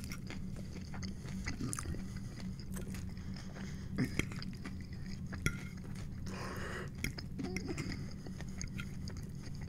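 Close-miked chewing of loaded tater tots, with small clicks and scrapes of a fork against the plate, over a steady low hum.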